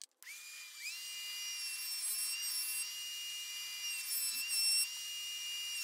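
Router spinning a 1/2-inch roundover bit in a router table: a high-pitched whine that climbs in pitch as the motor spins up, then holds steady, dipping slightly and getting louder for moments as the bit cuts white oak.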